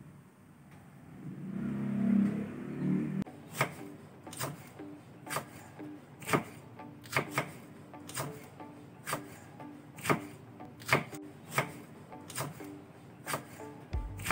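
A short stretch of music, then a knife slicing fresh red chillies on a wooden chopping board: sharp knife strokes against the board, roughly one every half second to a second, starting about three seconds in.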